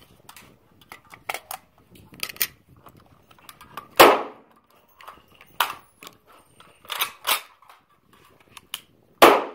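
Gunshots fired at irregular intervals, several sharp cracks with the loudest about four seconds in. Two come in quick succession around seven seconds.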